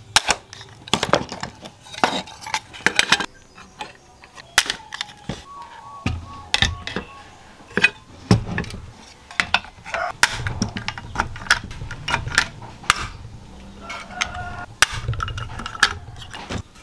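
Hand pop-rivet tool setting 2.5 mm rivets in aluminum sheet, with aluminum chassis parts clinking and knocking on a wooden bench: many sharp, irregular clicks and metallic clinks.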